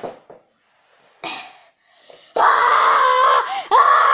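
A boy's voice letting out a long, loud, drawn-out vocal sound without words, held on one pitch and then stepping up and down near the end. It comes after a couple of seconds of quiet with a few brief rustles.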